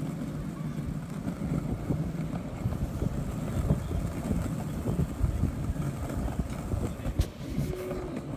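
Wind buffeting a phone's microphone: a steady low rumble, with a couple of sharp clicks near the end.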